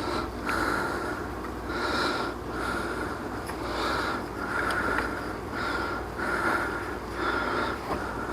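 A person breathing hard through the nose in short, repeated puffs, about one a second, as while straining at a task.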